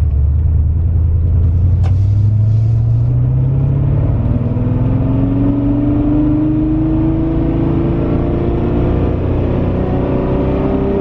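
Porsche 928S V8 engine pulling under acceleration while driving, its pitch rising steadily as the revs climb.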